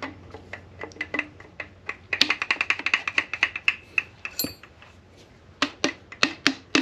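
Metal tool clicks on a piston ring compressor as it is seated and tightened around a piston on the Honda K24 block: a fast run of ringing metallic clicks about two seconds in. Near the end come several sharp taps as the piston is knocked down through the compressor into the bore with a hammer handle.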